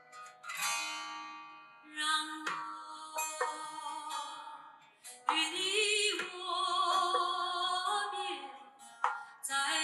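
A song playing through a Huawei P50 Pro phone's built-in stereo speakers. Plucked string notes ring out and fade, and from about five seconds in a held, wavering melody comes in over them.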